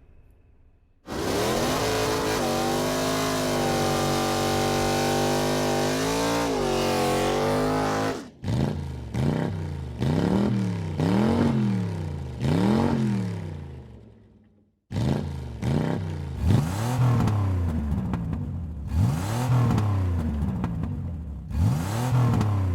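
A car engine starting suddenly and running steadily, then revved up and down over and over, about once every second or so; it cuts off abruptly partway through and picks up again with more revs, like edited engine sound effects laid over play with toy cars.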